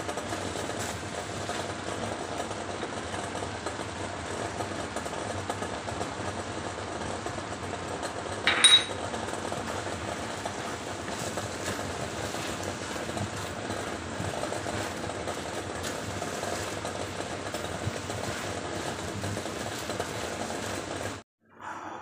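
Shrimp sizzling in a stainless steel wok as a spatula stirs them, over a steady hum, with one sharp clank of metal on the pan about nine seconds in. The sound cuts off just before the end.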